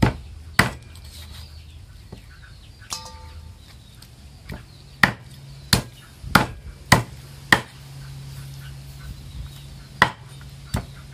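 Heavy meat cleaver chopping through bone-in poultry on a round wooden chopping board, in sharp single chops. There are two near the start, a quick run of five about half a second apart in the middle, and another about ten seconds in.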